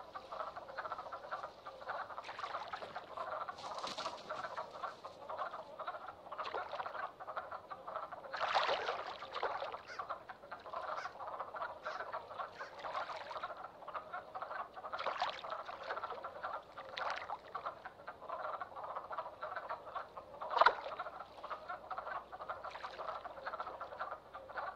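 Dense, continuous chorus of male wood frogs calling at a spawning pool, the calls that decide the competition for females. A louder flurry of calls comes about eight seconds in, and one sudden loud sound about twenty seconds in.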